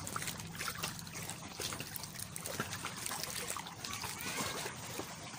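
Shallow sea water lapping and splashing close to the microphone, with many small trickling splashes.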